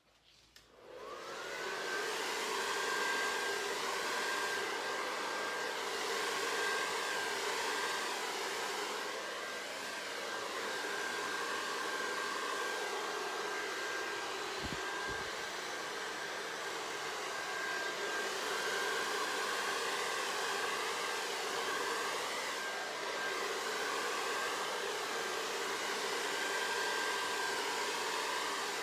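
Handheld hair dryer switched on about a second in and then blowing steadily, with a thin high whine over the rush of air. It is being used to blow wet acrylic pouring paint across a canvas.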